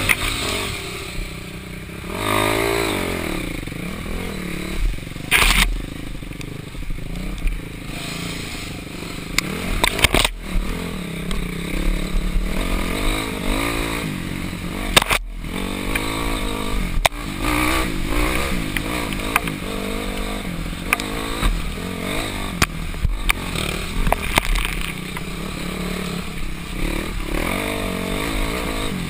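Dirt bike engine revving up and down as it rides a rough, muddy trail, with sharp knocks and clatter from the bike over bumps every few seconds.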